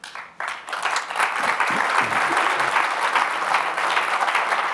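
Audience applauding. The clapping starts just after the beginning, swells within about a second and then holds steady.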